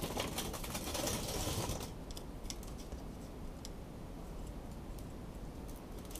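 Light metal clicks and scraping of needle-nose pliers working a small cotter pin into the tractor's governor linkage. The first two seconds hold a denser rustling scrape, then separate small clicks follow.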